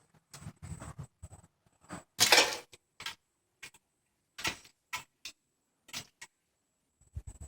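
Irregular scrapes and knocks of something snow-blocked being pushed and forced open, with a short rushing scrape about two seconds in the loudest.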